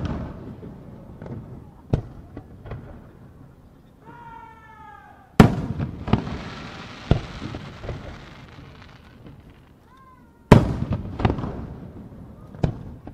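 Aerial firework shells bursting: a sharp boom at the start, then two more about five seconds apart, each trailed by smaller sharp reports. A short whistling tone comes just before the middle boom, and a crackling hiss follows it for a few seconds.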